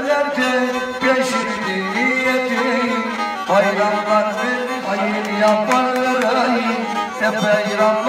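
Black Sea kemençe (bowed three-string fiddle) played over a steady low drone, accompanying a man singing an atma türkü, a Black Sea folk song.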